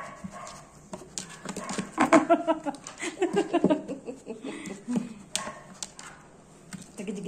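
Puppies vocalising as a hand rubs and plays with them, mixed with a woman laughing.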